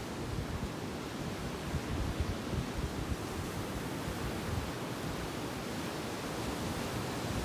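Sea surf on a beach: a steady rush of waves, with wind buffeting the microphone.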